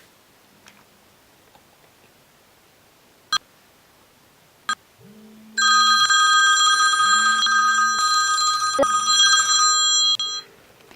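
A phone ringing with a steady electronic ring, starting about five and a half seconds in and lasting about five seconds before it stops. Two short clicks come before it.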